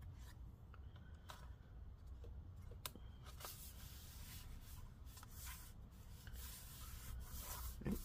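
Faint handling of a laptop's metal bottom cover: a few light clicks as fingers press along its hinge edge, then a soft rubbing as palms press and slide over the panel.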